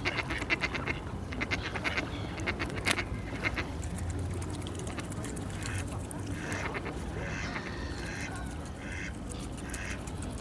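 Waterfowl at the water's edge: quick clicks and small splashes, like a bill working the water, for the first three seconds or so. From about six seconds in, short nasal quack-like calls repeat.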